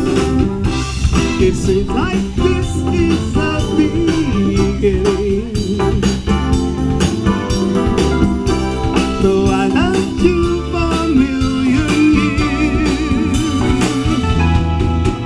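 A live soul band playing, with guitar, keyboard and drum kit keeping a steady beat.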